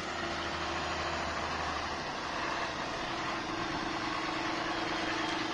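John Deere tractor's diesel engine running steadily as the tractor drives toward the listener, its hum growing stronger about two-thirds of the way in.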